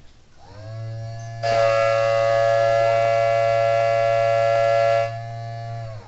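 A 3D-printed miniature Thunderbolt tornado siren: its chopper motor winds up quickly to a steady tone of several pitches, and about a second and a half in, air from a balloon blown into it as a makeshift blower makes it much louder and hissier. About five seconds in the siren tone drops away fast, leaving a low motor hum; the quick wind-up and wind-down come from the chopper motor having no supercapacitor.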